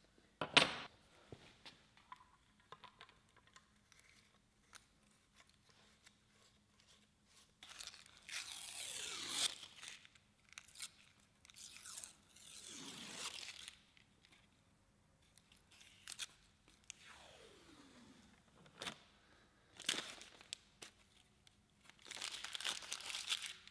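Thin cardboard being torn and peeled apart by hand in several rough bursts of a second or two, the longest about eight seconds in and near the end. A single sharp click near the start is the loudest sound.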